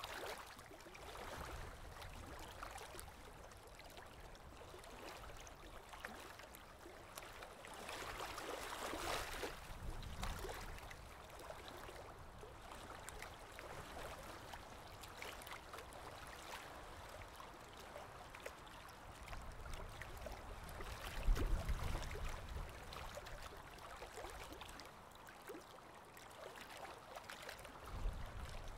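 Faint water sounds, a gentle trickling and lapping with small irregular ticks, broken by a couple of louder low rumbles about two-thirds of the way through and near the end.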